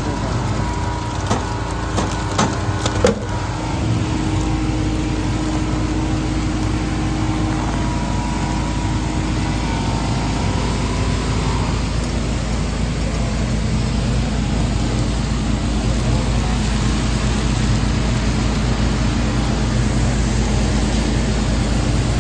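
A few sharp clicks and knocks in quick succession as a hand pushes through a vending machine's hinged delivery flap, over a steady low rumble.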